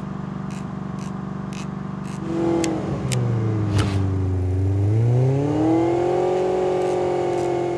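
Cartoon sports-car engine sound effect: a steady idling hum with a light tick about twice a second, then from about two seconds in the engine revs, its pitch dipping and then climbing and holding high.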